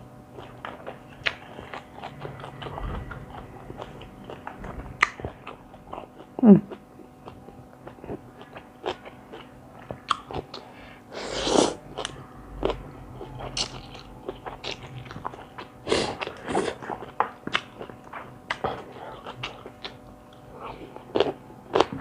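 Close-up mouth sounds of someone eating a spicy seafood rice-noodle salad: wet chewing and biting with occasional crunching, in many short clicks and a few louder bursts.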